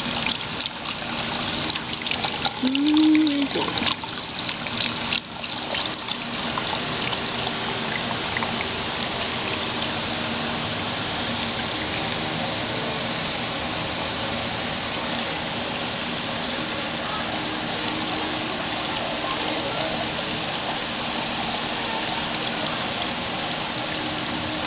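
Water trickling and splashing down a tiered driftwood-style garden fountain into its basin, a steady patter. The splashing is more uneven for the first few seconds, then settles into an even, constant trickle.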